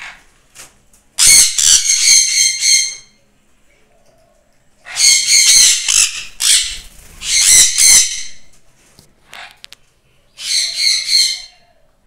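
Sun conures screeching in four loud bouts of harsh, rapid screeches, each a second or two long. They are calling more than usual because it is their feeding time.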